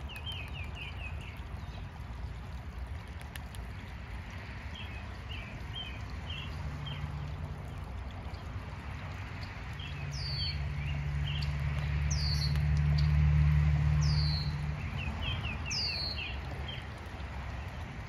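Backyard birdsong: a small bird repeats a short twittering phrase several times, and four clear down-slurred whistled notes sound in the second half. A low engine hum swells through the middle, loudest about two-thirds of the way in, then fades.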